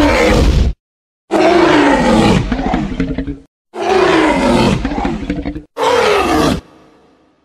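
Tyrannosaurus rex roar sound effects in the style of the Jurassic Park T. rex: a short roar, then two long roars that fall in pitch, then a shorter roar with a fading tail, each cut off abruptly with silence between.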